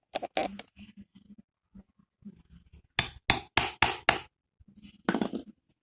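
Sharp metal knocks and clinks from tools and valve parts being handled on a motorcycle cylinder head during hand valve lapping: a few near the start, a quick run of about five louder knocks around the middle, and one more near the end.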